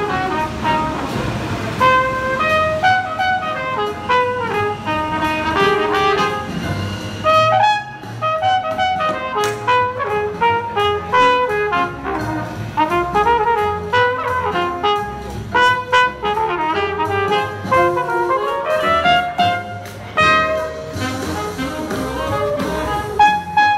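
Busker's saxophone playing an upbeat jazz swing tune over a fuller accompaniment, with a steady beat underneath.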